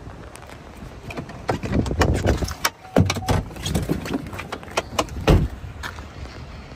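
A run of knocks, clunks and rattles as a handheld camera is handled against a car door, with heavy thuds about three and about five seconds in.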